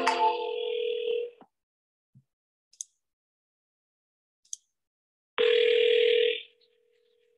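Telephone ringback tone on an outgoing call: two rings about six seconds apart, each a steady tone lasting a second or two, with a few faint clicks in between.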